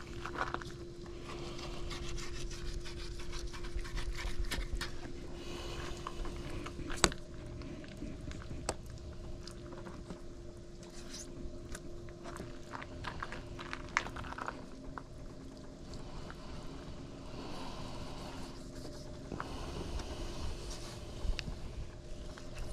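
Knife scraping and cutting through shark meat while the fish is cleaned, with scattered sharp clicks and a steady hum underneath.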